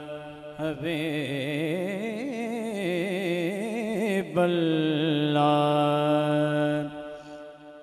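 A man singing a naat unaccompanied into a microphone: a held note, then a long wavering melismatic run, then another long held note that fades away near the end.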